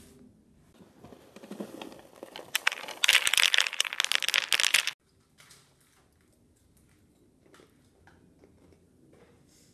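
Cereal box and its plastic inner bag being opened and handled, rustling at first, then crinkling loudly and densely for about two seconds before cutting off suddenly.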